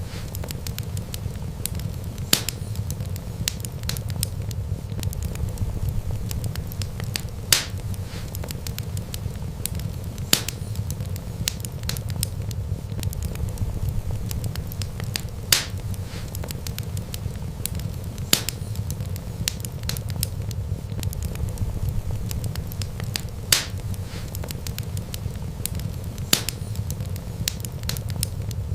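Wood fire crackling: a steady low rumble of flames under a dense scatter of small crackles, with sharp loud pops from the burning wood every few seconds.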